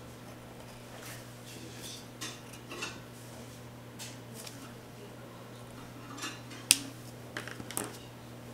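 Small taps and scrapes of a pencil on paper against a wooden tabletop while colouring a paper sheet. About two-thirds through comes one sharp click, the pencil set down on the table, followed by a few quicker taps and paper handling.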